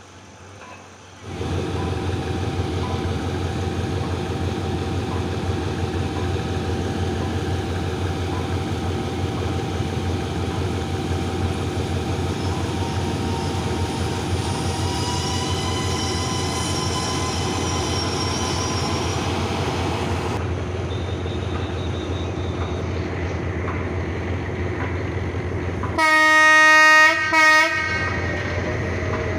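Diesel locomotive running steadily with a low rumble. Near the end its horn sounds twice, a long blast followed by a short one.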